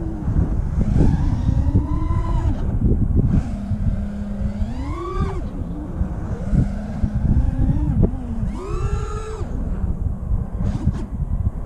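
FPV racing quadcopter's motors whining, their pitch swooping up and down with throttle, rising sharply twice, about halfway and two thirds of the way in, over a heavy wind rush on the onboard camera's microphone.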